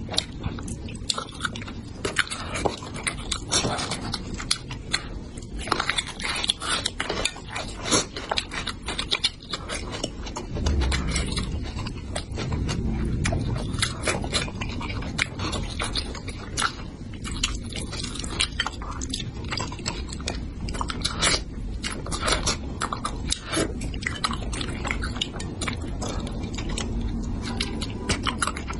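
Close-miked wet chewing, slurping and lip-smacking of a person eating spicy braised bighead carp head in sauce, a dense, irregular run of small smacks and clicks.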